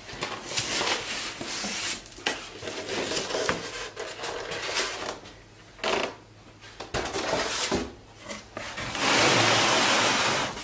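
Cardboard box and paper packing being handled: uneven bursts of rustling, rubbing and scraping, ending in a longer, louder scraping rush.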